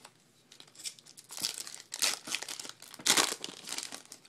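Foil wrapper of a 2012 Bowman baseball card pack being torn open and crinkled by hand, in a run of irregular crackles and rips.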